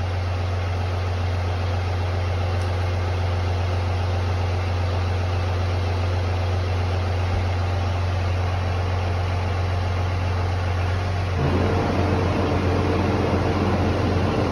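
An engine idling with a steady low hum; about eleven seconds in it gets louder and a steady higher note joins in.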